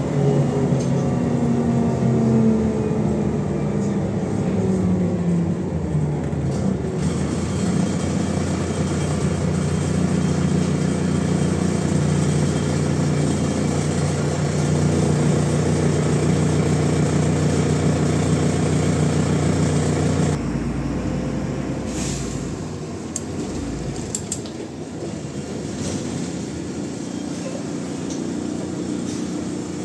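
A MAZ-105 articulated city bus under way, heard from inside the passenger cabin: engine and drivetrain hum falling in pitch over the first few seconds, then holding steady. About twenty seconds in the sound changes abruptly to a lower, rumbling hum with a few clicks and rattles.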